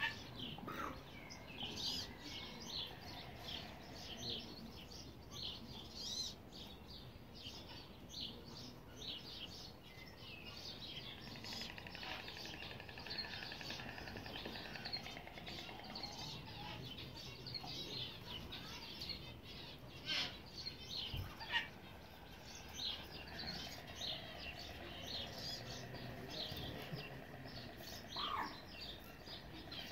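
Small birds chirping and peeping: many short high calls overlap all the way through, with a few louder ones about two-thirds of the way in and near the end.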